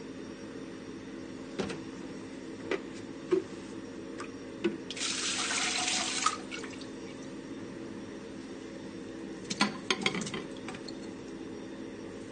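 Liquid poured from a jug into the stainless-steel bowl of a Masterchef batch cooker, a splashing pour of about a second and a half some five seconds in, over a steady machine hum. A few light knocks come before it and again near the ten-second mark.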